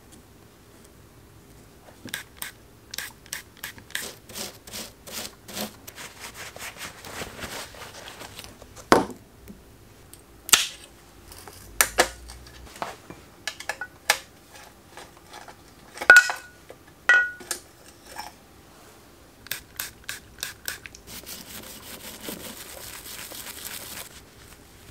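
Small stiff brush scrubbing grease off bicycle derailleur and brake parts: a run of short scratchy strokes, with sharper clicks and knocks of metal parts, two of them ringing briefly about two-thirds of the way through. Near the end comes a few seconds of faster, steady scrubbing.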